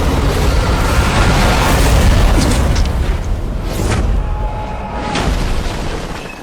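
Cinematic sound effects of booming blasts and heavy rumbling over dramatic background music, with sharp hits about two and a half, four and five seconds in.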